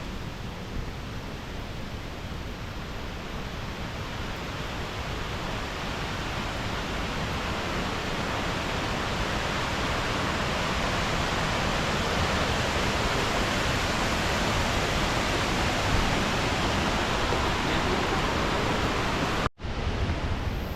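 Diyaluma Falls, a 220 m waterfall in heavy flow after rain, pouring with a steady rushing noise that grows slowly louder over the first half. The sound drops out for an instant near the end.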